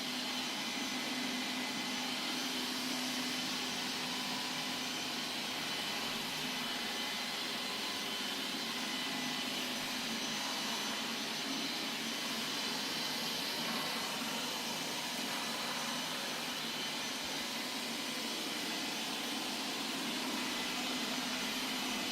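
Qihoo 360 S6 robot vacuum cleaner running: a steady whirr from its suction fan, with several constant high whines over a low hum.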